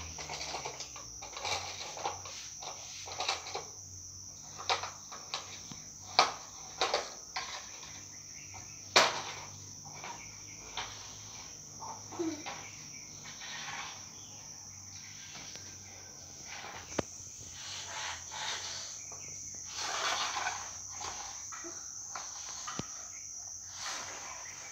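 A plastic toy airplane knocking and scraping on a concrete floor as a small child handles it, in irregular clicks and taps, the sharpest about six and nine seconds in. Behind it, a steady high insect trill, as of crickets.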